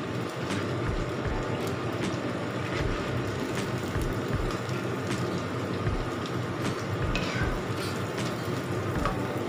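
Vegetable fritters deep-frying in hot oil in a wok: steady sizzling with scattered crackles and pops as the batter crisps.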